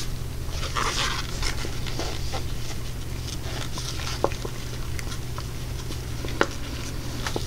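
Wooden stir stick scraping round a plastic cup, mixing pigment into epoxy resin in a run of soft, rhythmic strokes with a few light clicks. A steady low hum runs underneath.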